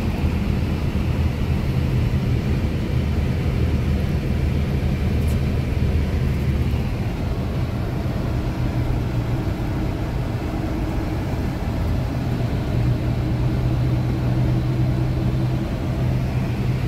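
Engine and tyre noise of a vehicle driving on a wet road, heard from inside the cab as a steady low drone. The lowest part of the drone shifts about seven seconds in.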